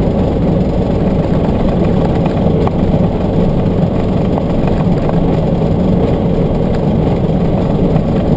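Steady engine and tyre noise heard inside a vehicle's cabin while driving along a dirt road.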